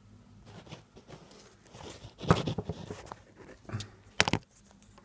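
Handling noises as a wristwatch is put on and strapped to the wrist: rustling with sharp clicks, one a little over two seconds in and a quick pair near the end.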